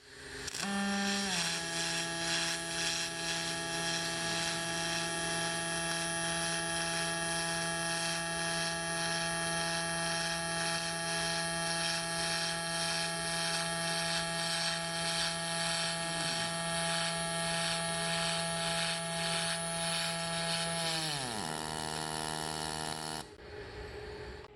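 MIG welding arc on invar: a steady buzzing hum over a crackling hiss that starts suddenly. It runs for about twenty seconds, sinks in pitch near the end and cuts off as the arc is broken.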